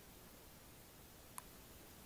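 Near silence: a faint steady hiss with a single short click about one and a half seconds in.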